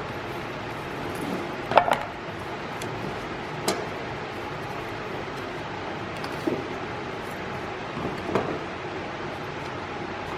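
A few scattered knocks and clicks, the loudest about two seconds in, over a steady background hiss: wood and tools being handled and set down during carpentry work.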